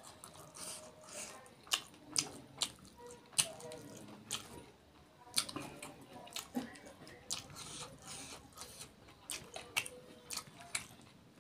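Close-miked eating of rice and curry by hand: wet chewing and lip smacking with irregular sharp wet clicks, and fingers squishing through rice and curry.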